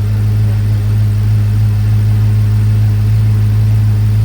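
2014 BMW M5 Competition's twin-turbo V8 idling steadily on its first run after the rebuild, running smoothly.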